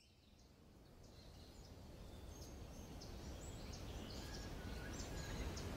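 Birds chirping over a low outdoor rumble, fading in steadily from near silence.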